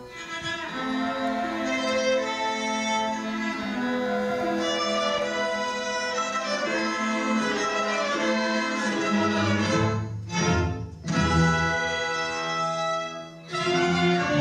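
Youth orchestra playing, with bowed strings (violins, cellos, basses) to the fore in sustained notes; the sound drops back briefly about ten seconds in and again about thirteen seconds in.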